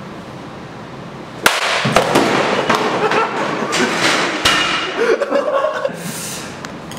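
Excited yelling and laughter from young men, breaking out suddenly about a second and a half in, mixed with scattered sharp knocks and thumps.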